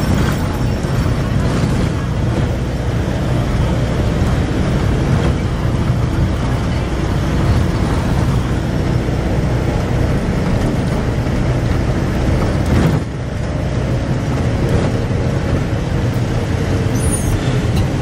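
Engine and road noise of a moving safari vehicle, heard from inside: a steady low drone under a rushing noise, easing off briefly about thirteen seconds in.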